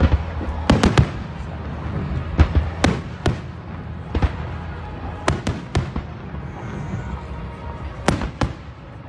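Aerial fireworks shells bursting in sharp bangs, some in quick runs of three, the rest singly, with a pair near the end.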